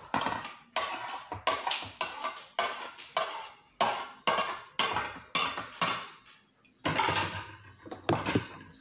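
Plates, bowls and cutlery clattering on a tabletop as a table is cleared, a quick run of sharp knocks about two a second with a short pause near the end.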